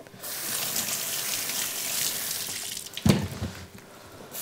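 Kitchen tap running as a zucchini is rinsed under it in the sink. The water cuts off a little after three seconds with a short knock, the loudest moment, and starts running again near the end.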